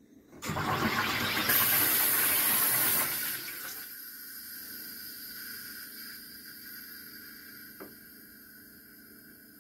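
SodaStream Terra carbonating a bottle of water: CO2 gas rushes into the water with a loud hissing gush for about three seconds, then it fades into a softer fizzing as the bubbles settle. A small click comes about eight seconds in.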